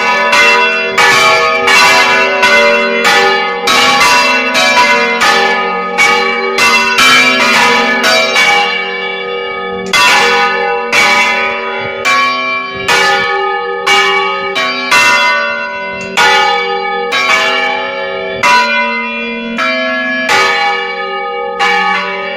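Church bells rung by hand, heard close up in the belfry: several bells struck in quick succession, about one to two strokes a second, each stroke ringing on into the next.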